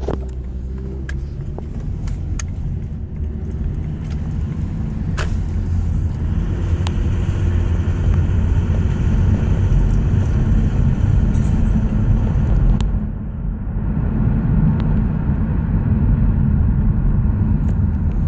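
Lexus ES330 pulling away and driving at low speed: a steady engine and road rumble that builds over the first few seconds, with scattered sharp clicks over it. The owner hears an intermittent rattle at 0 to 20 mph and does not know its cause.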